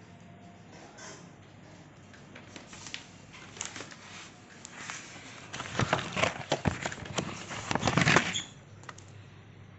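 Crackling rustles and clicks of paper and a hand handling the phone close to the microphone. They build from about three seconds in, are loudest between six and eight seconds, and stop suddenly, over a faint steady low hum.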